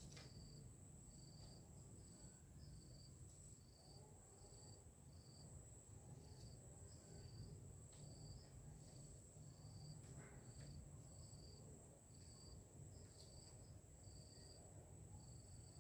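Faint insect chorus: a steady high-pitched trill with a cricket chirping in short, regular pulses, roughly one and a half a second. A few faint knocks now and then.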